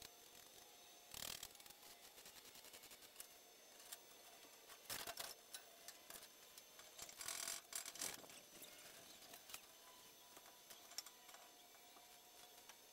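Faint clicking and scraping of hand work on a steel roof frame, in short bursts about a second in, around five seconds in, and between seven and eight seconds in, over a faint steady hiss.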